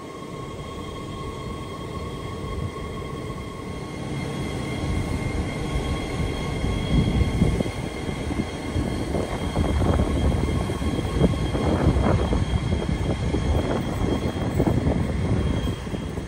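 Sydney Trains Oscar H set electric train pulling in along the platform: a low rumble and wheel clatter build up from about four seconds in. Under it, the steady drone and whine of idling Pacific National 81 class diesel locomotives.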